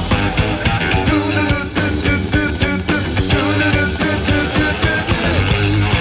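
Rock trio playing a studio live take: electric guitar lines over bass and drums. The recording is a 1990 FM radio broadcast taped off the air onto cassette.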